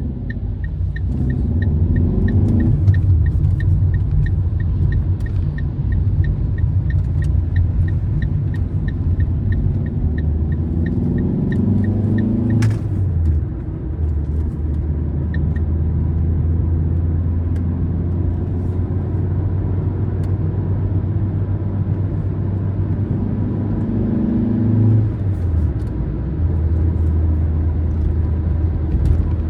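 Car driving: a steady low engine and road rumble, with the engine note rising three times as it accelerates and dropping back each time. A quick, even ticking runs through the first half and then stops, and there is one sharp click shortly before it stops.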